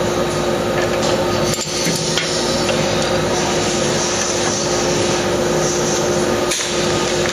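Steady machine-shop hum with one constant tone, and a few sharp taps of a steel tool at the magnesium VW engine case, one early on and one near the end.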